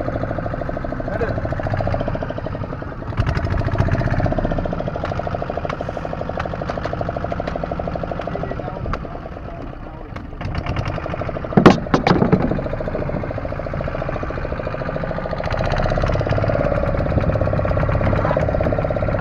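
Fishing boat's engine running steadily with a fast, even chugging. Two loud sharp knocks come a little past halfway.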